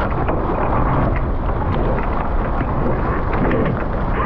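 Steady wind rumble on the microphone with water rushing and splashing against the hulls of a Nacra 15 sailing catamaran under way, with many small spray-like splashes throughout.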